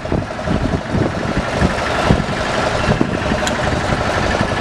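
Fishing boat's engine running steadily with an even, fast pulse, with scattered knocks and thumps over it.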